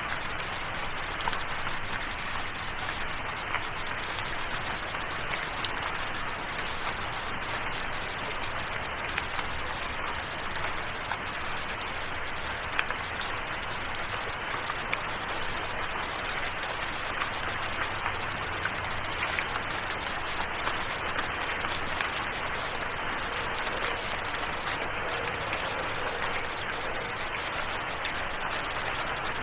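Steady rain, an even patter with many scattered individual drop ticks.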